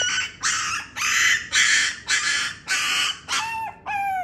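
Schnoodle puppy crying in distress at being handled: a rapid run of shrill, harsh cries, about two a second, turning to clearer whining yelps that fall in pitch near the end.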